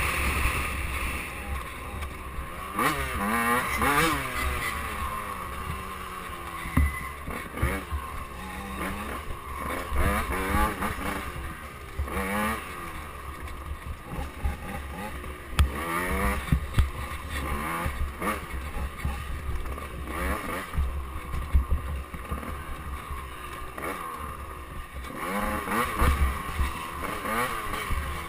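85cc KTM two-stroke dirt bike engine under way on a trail, its revs climbing and dropping over and over as the throttle is worked and gears are changed.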